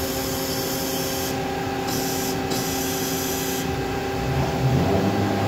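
Hyd-Mech H14A horizontal band saw's hydraulic unit humming steadily, with three spells of hissing as oil is valved through to work the front vise. A short low rumble comes near the end.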